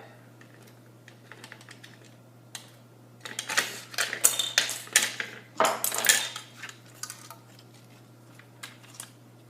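Plastic parts of a disassembled Nerf blaster being handled and fitted together: a run of clicks and clatters, busiest from about three to seven seconds in.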